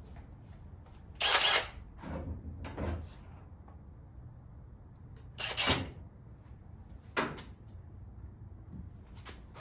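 Knocks and short scraping noises from hand work: two loud half-second scrapes, about a second in and again after five seconds, then a lighter knock and a click near the end.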